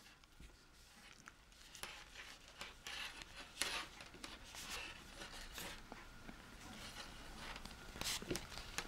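Faint rustling of yarn and soft, scattered clicks of a circular knitting needle as a magic-loop sock is handled and worked.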